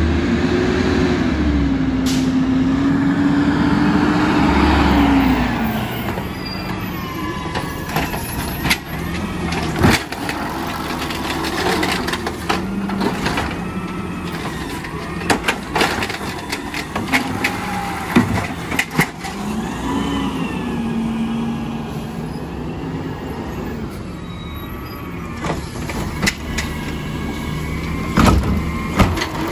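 Peterbilt natural-gas automated side-loader garbage truck pulling up, its engine rising and falling in pitch for the first several seconds. It then keeps running while the hydraulic arm works, with a wavering whine and a series of knocks and clanks as the arm grabs and lifts a cart.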